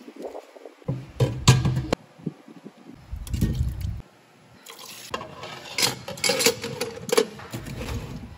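Food being rinsed and handled at a stainless steel kitchen sink: water splashing, bowls knocking, and potato and corn chunks tipped into a steel pot, in a series of short clattering bursts.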